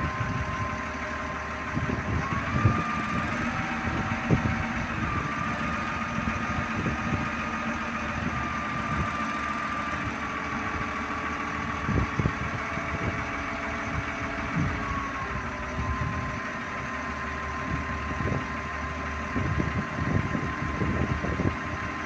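An engine or motor running steadily with a high whine that steps up and down in pitch a few times, over irregular short knocks and clanks.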